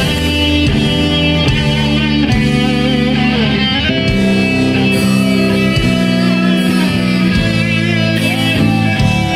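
Southern rock band playing live at full volume: an electric guitar lead with bent notes over sustained distorted chords.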